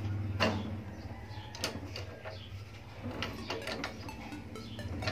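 Scattered metallic clicks and knocks from a socket wrench on the 17 mm front axle nut of a Yamaha Mio Sporty scooter as it is loosened. A quicker run of small ticks comes about three seconds in.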